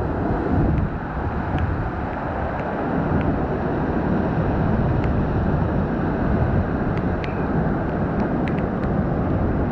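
Hurricane-force wind blowing hard over the microphone in a steady rumbling gust, with a few faint sharp clicks scattered through it.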